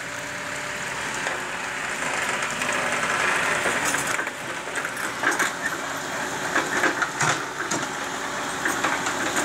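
Engine of a loaded dump truck running steadily as the truck pulls slowly through mud, with noise that swells a few seconds in.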